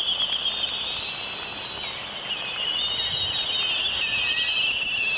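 Laysan albatross chick begging while its parent feeds it, a continuous high-pitched trilling squeal that eases slightly about two seconds in, then picks up again.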